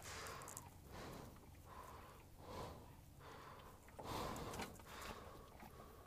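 Black Labrador puppy breathing and snuffling through its nose, its mouth closed around a plastic watering can's handle: faint, irregular breathy puffs, about six of them.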